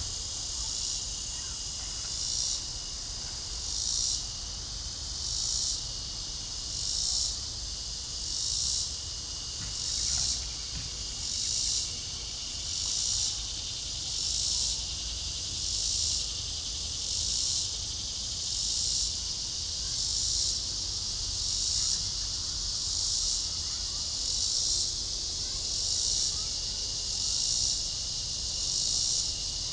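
A dusk chorus of insects: a steady high buzzing drone that swells in regular pulses about every one and a half seconds.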